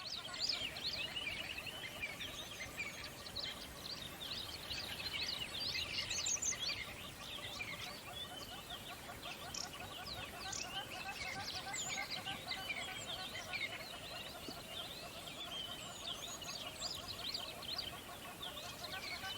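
A dense chorus of many small birds chirping and twittering, calls overlapping without pause, over a steady lower trilling chorus and a faint background hiss.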